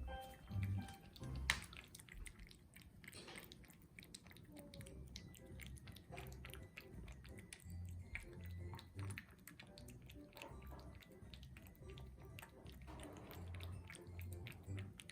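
A Russian Blue cat eating wet food, with many small wet chewing and licking clicks, over soft background music.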